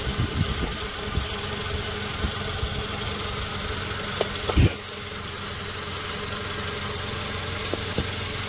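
A 2009 Toyota Tacoma engine idling cold, with irregular low thumps in the first second and one louder thump about four and a half seconds in. The mechanic feels a misfire on this engine and finds compression leaking into the cooling system.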